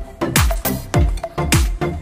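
Background music with a steady beat of deep kick drums, about two a second.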